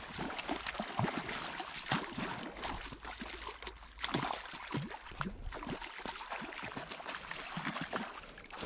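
Small, irregular splashes and gurgles of water close by, from a trout swirling and rising at the surface of a slow forest stream.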